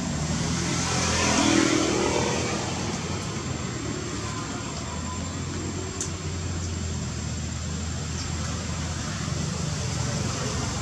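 Motor vehicle engine hum over steady traffic noise, swelling to its loudest about a second and a half in, as of a vehicle passing.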